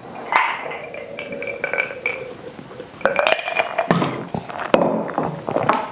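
Supplement bottles and capsules being handled, with a series of light clinks and knocks and a few short ringing clinks.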